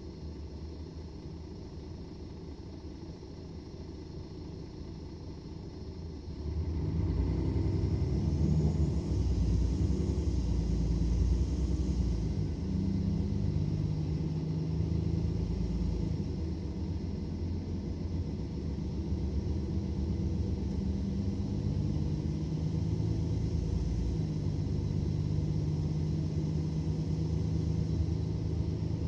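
Mercedes-Benz Citaro O530 bus's diesel engine running with a low rumble; about six seconds in it gets much louder, as under load, then runs on steadily with its pitch stepping up and down a few times.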